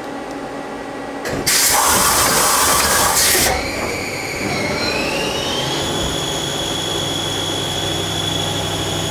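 Mazak CNC lathe starting its spindle. A loud rushing noise lasts about two seconds, then the spindle drive's whine rises in pitch and settles into a steady whine over a low hum as the chuck comes up to speed.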